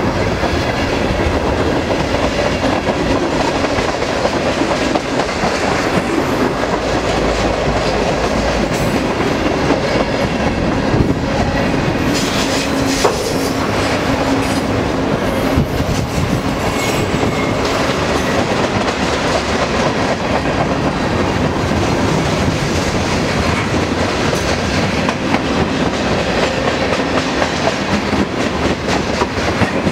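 Freight cars of a long mixed freight train (gondolas, autoracks and covered hoppers) rolling past close by: a steady loud rumble with a constant clatter of steel wheels on the rails.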